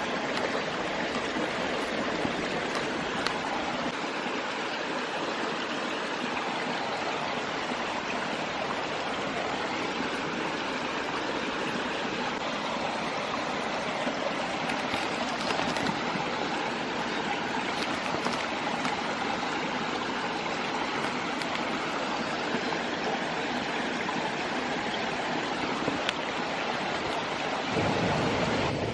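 Mountain stream flowing steadily, an even rushing murmur of water. Near the end the sound grows fuller and slightly louder.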